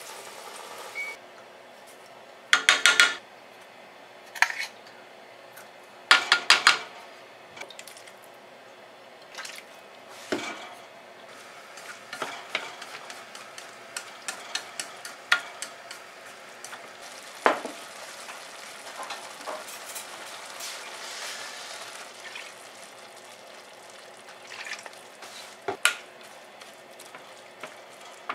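A wooden utensil stirring shredded dried daikon and carrot in water in a frying pan, with scattered light taps and scrapes against the pan over a faint sizzle. Two short, loud clattering rattles come about three and six seconds in.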